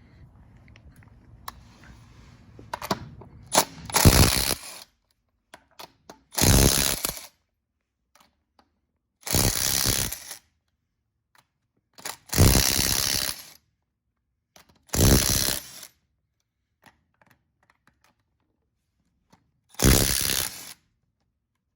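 Six short, rattling mechanical bursts from a tool, each under a second long, separated by a few seconds of silence.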